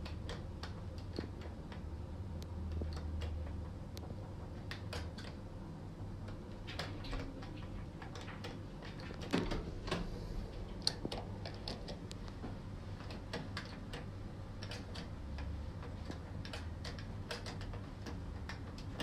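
Handling noise on a phone's microphone: irregular light clicks and taps over a low steady hum, with a few louder knocks about halfway through.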